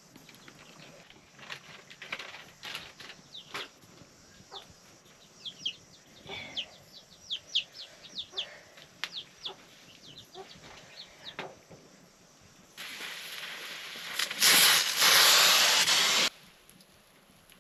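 Scattered knocks and clatter with a run of short, high, falling chirps from chickens, then a loud steady hiss that lasts about three and a half seconds, steps up partway through, and cuts off suddenly.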